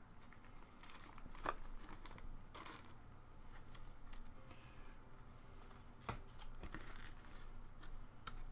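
Faint rustling and scraping of 2015-16 O-Pee-Chee Platinum hockey cards being slid apart and shuffled by gloved hands, with a few short, sharper scrapes scattered through.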